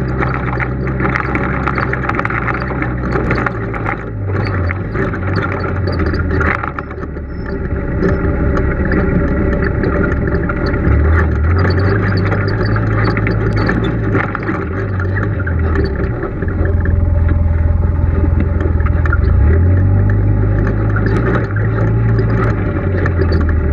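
A Polaris RZR side-by-side's engine runs at a low, uneven pace over a rough dirt trail, its drone stepping up and down in pitch several times as the throttle changes. Frequent short rattles and knocks come from the bumpy ride.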